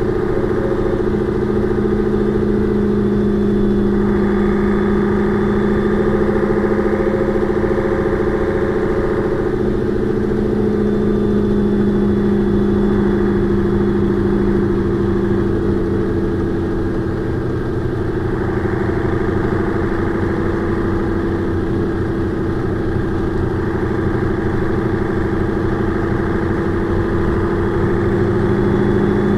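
Engine of a Mercedes-Benz O405 N2 city bus running steadily. Its pitch sinks slightly partway through and rises a little again near the end.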